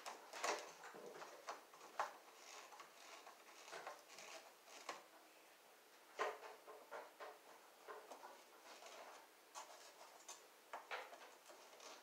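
Faint, irregular clicks and scrapes of a hand screwdriver driving screws that fasten a plastic smoke-detector mounting ring to a ceiling electrical box.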